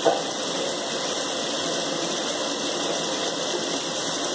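Steady rushing hiss from a pot of chicken and potato curry cooking over a gas burner, with one short knock right at the start.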